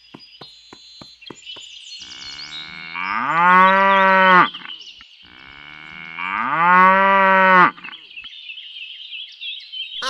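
A cow mooing twice, two long calls that each rise in pitch and then hold, over a thin, high, steady chirring background. A quick run of light ticks, about four a second, comes before the first moo.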